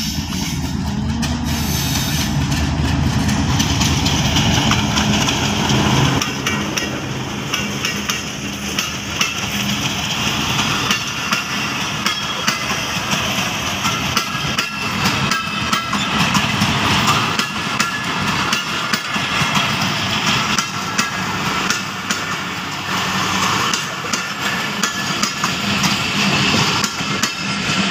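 A diesel locomotive runs as it approaches, and then a long passenger train's coaches rumble past close by. After about six seconds the engine sound gives way to steel wheels clattering on the rails, with many quick knocks over the rail joints.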